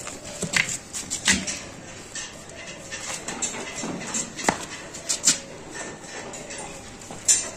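Several brief hisses from an aerosol spray can being sprayed in short puffs onto a goat's udder, among scattered light taps and shuffles.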